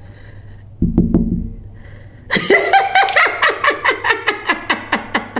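A dull low thump about a second in, then a person laughing hard: a long run of quick 'ha' pulses, each falling in pitch, for about three seconds.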